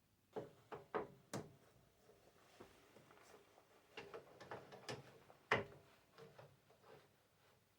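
A series of light metallic clicks and knocks from metal tool-post parts being handled: four in the first second and a half, then a cluster of smaller ones, with the loudest knock a little after halfway.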